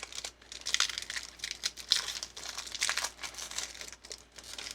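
Foil booster-pack wrapper of a Pokémon trading card pack crinkling and tearing as it is torn open by hand.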